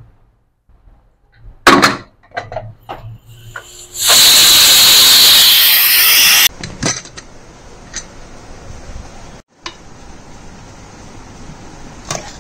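A sharp clank, then a pressure cooker venting steam in a loud hiss for about two and a half seconds that cuts off suddenly; a softer steady hiss with a few clicks follows.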